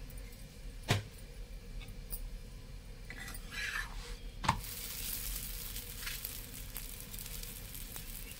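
Keema (minced meat) sizzling in a hot pan on the stove. A utensil knocks against the pan about a second in and again about four and a half seconds in, and the sizzle gets louder after the second knock.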